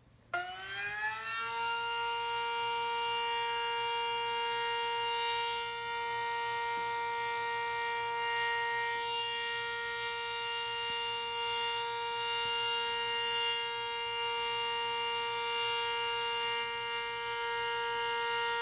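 Sentry 10V2T two-tone electromechanical tornado siren being tested: it winds up, rising in pitch over about a second, then holds a steady wail.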